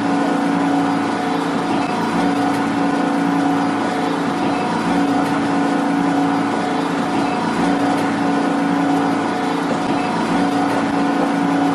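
A subway train's steady electric hum and rumble, with a whine held at a few fixed pitches.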